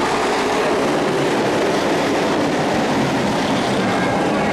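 A pack of dirt-track race trucks running hard together, their engines blending into one loud, steady drone.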